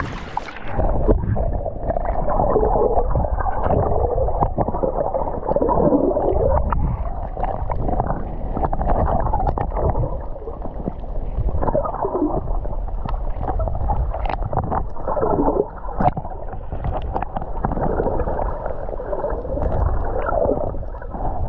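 Shallow seawater heard through a submerged action camera: a muffled, dull wash that swells and ebbs every few seconds, with bubbling and scattered small clicks.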